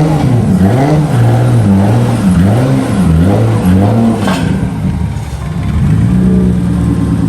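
Mitsubishi 3000GT VR-4's turbocharged V6 revving up and down several times, then holding a steady note from about six seconds in.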